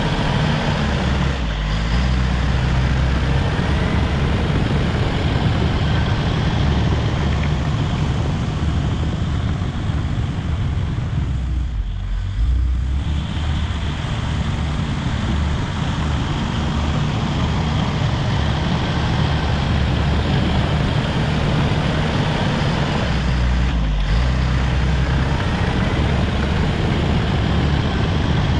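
Caterpillar D5 wide-track bulldozer's diesel engine running steadily and loud under work. Its sound briefly dips about halfway through and again a few seconds before the end.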